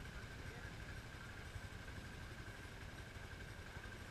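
Motorcycle engines idling faintly, a low steady rumble with a thin steady high tone above it.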